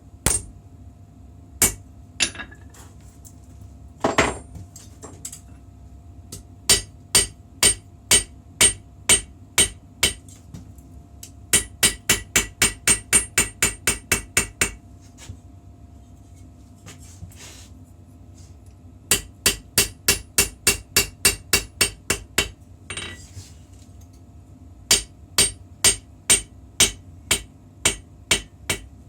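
Hammer striking steel with sharp, ringing metallic blows. The blows come in several runs of steady strokes, the quickest run at about four a second. A faint steady hum lies underneath.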